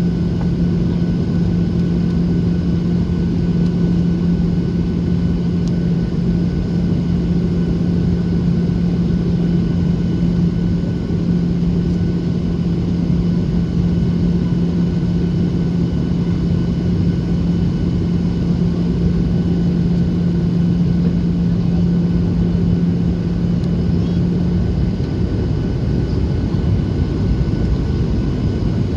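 In-cabin noise of a Boeing 737-800 descending on approach: the steady rush of air and the CFM56-7B engines, with a low steady hum that stops about 25 seconds in.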